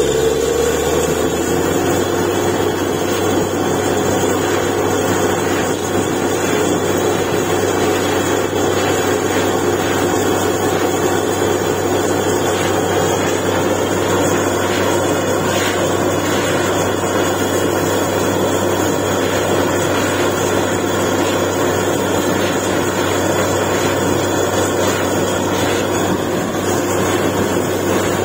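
Truck-mounted borewell drilling rig running steadily as it bores, its engine and drilling machinery making a loud continuous drone. A short rising whine sounds at the very start.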